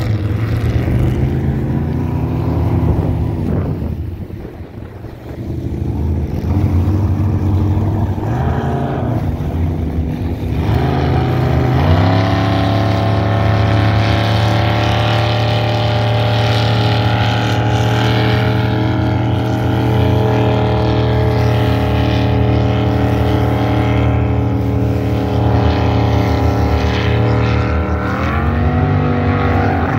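Racing jet boat engines running hard at high revs. The sound drops away briefly about four seconds in, then the engine pitch climbs as a boat accelerates about twelve seconds in, and climbs again near the end.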